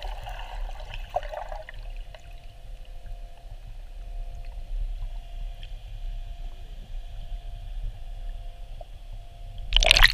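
Muffled underwater lake sound heard through a GoPro's waterproof housing: a low rumble with a faint steady hum. Near the end comes a loud splash and rush of water as the camera breaks the surface.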